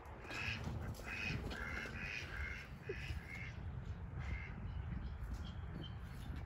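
Harsh bird calls, about eight in quick succession over two and a half seconds, then one more call a little past the middle, over a low rumble.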